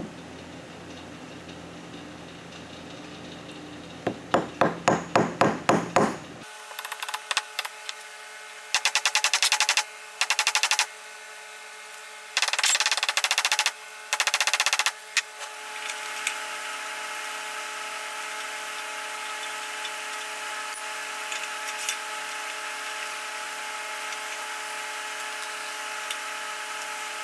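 Ball-peen hammer striking the end of a threaded steel rod held on a steel block: a run of about eight sharp metallic blows, about four a second, then several short spells of very fast hammering. A steady hum follows for the second half.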